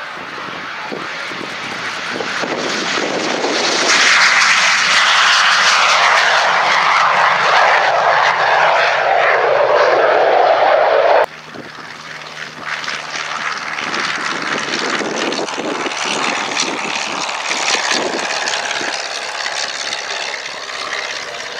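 BAE Hawk T1 jet's Adour turbofan at take-off power. The roar builds over the first few seconds, stays loud with its pitch sinking as the jet climbs away, then cuts off abruptly about eleven seconds in. After that a quieter Auster AOP.9 light aircraft's piston engine runs steadily on its landing approach.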